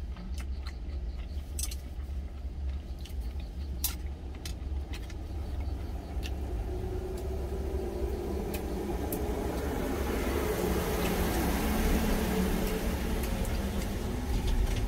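Low steady rumble of an idling truck engine heard in the cab, with a few light clicks of wooden chopsticks against a steel lunch container. In the second half a broad rushing noise swells, loudest about twelve seconds in, and eases off near the end.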